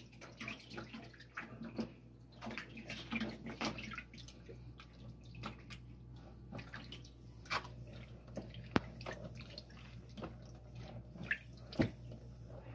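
Hands rubbing a wet marinade into raw whole chickens in a plastic basin, making faint, irregular squishing and splashing, with a few sharp knocks. A low steady hum runs underneath.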